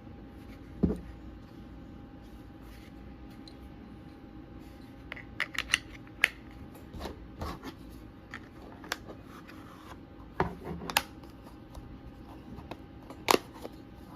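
Irregular clicks and knocks of small items and packaging being handled: one heavier knock about a second in, then a quick run of clicks halfway through and a few more sharp clicks later, over a faint steady hum.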